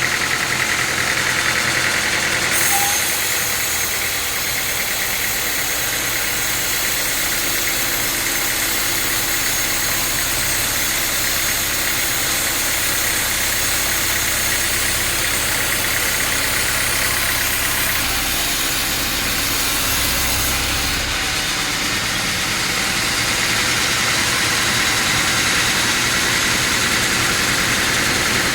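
Sawmill machinery running steadily while sawing a teak log. A higher hiss rides over the running from about three seconds in until about twenty-one seconds in.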